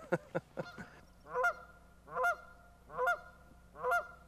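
Canada goose honking repeatedly, about one honk every 0.8 seconds after a few short sharp sounds in the first second. It is alarm honking at a person coming too close to its nest.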